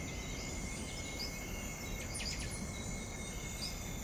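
Tropical forest ambience: insects droning steadily on several high notes, with short bird chirps about every second and a quick flurry of chirps a little past halfway, over a low steady background noise.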